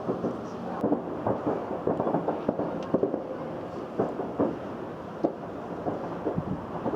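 Fireworks going off uncontrolled after an explosion: many irregular pops and bangs, several a second, over a steady rumble.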